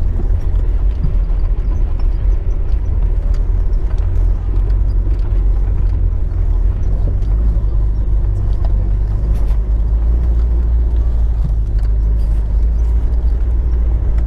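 Off-road vehicle's engine droning low, heard from inside the cabin while it drives along a rough dirt track, with scattered light knocks and rattles from the bumpy ride.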